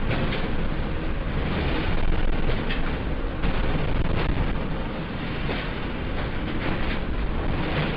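Deep, continuous earthquake rumble with scattered rattles and knocks, the sound of strong ground shaking, easing slightly in the second half.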